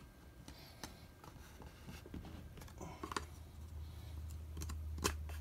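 Hinged wooden back of a contact printing frame being fitted and pressed into place by hand. It gives a few light clicks and knocks, the sharpest near the end, over a low hum.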